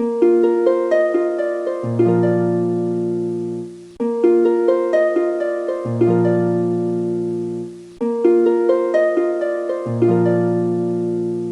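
Background music: a looping phrase of plucked notes that start sharply and fade, restarting about every four seconds, with a low bass note entering halfway through each phrase.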